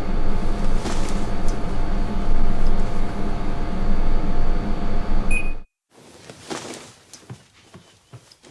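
Window air conditioner running: a steady mechanical hum with fan noise, and a short electronic beep about five seconds in. The hum then cuts off abruptly, leaving a few faint clicks and knocks.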